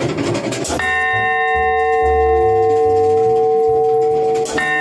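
1890s John Warner & Sons bronze bell struck by a turret clock hammer about a second in and again near the end, each blow followed by a ringing chord of several steady tones that carries on between the strikes. Background music runs underneath.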